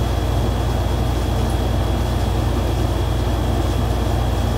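Steady low mechanical hum at an even level throughout, with a faint high-pitched whine held over it.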